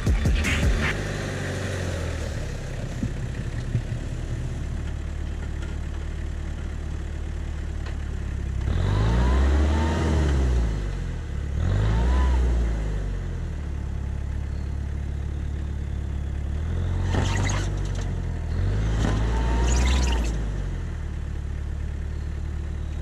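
Lifted Toyota Hilux pickup's engine running, revved up and back down four times in two pairs, as its big tyres spin in the snow on a climb.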